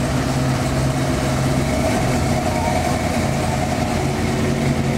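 First-generation Chevrolet Corvette's V8 running at low revs with a steady rumble as the car rolls slowly past.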